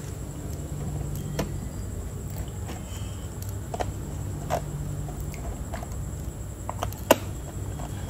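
A handful of small, sharp clicks and taps as a screwdriver and loose metal screws knock against a laptop's plastic base cover and the work surface; the sharpest comes a little before the end. A steady low hum runs underneath.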